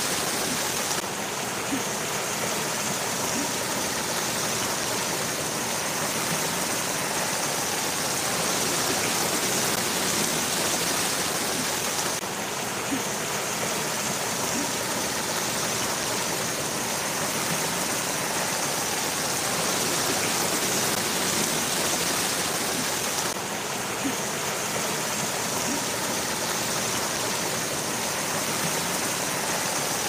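Water steadily splashing and rushing down a landscaped stone waterfall feature, spilling over tiers of rock into a pool.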